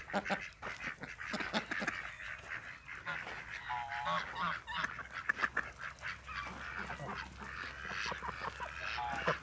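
A flock of waterfowl calling, with many short calls overlapping one another.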